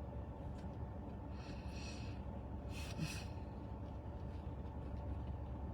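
A man breathing audibly twice in a pause in his speech, each breath short and hissy, over a steady low background hum.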